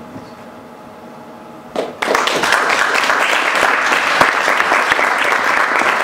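Quiet room tone, then an audience breaks into sustained applause about two seconds in.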